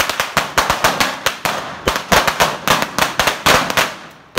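Higad firecracker going off: a rapid, uneven series of sharp bangs and pops, several a second, over a crackling hiss, with a short lull near the end.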